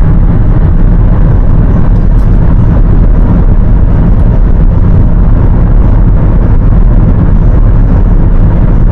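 Steady, loud rumble of a car at highway speed heard from inside the cabin: engine, tyre and road noise.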